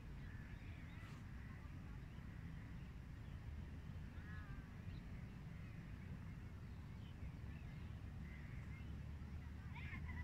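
Faint outdoor ambience: birds calling now and then, with a cluster of calls about four seconds in and more near the end, over a low steady rumble.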